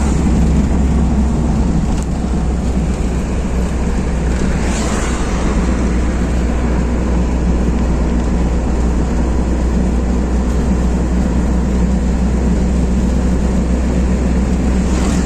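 A car's cabin heard while it is driven: steady engine drone with road and wind noise, and a brief whoosh about five seconds in.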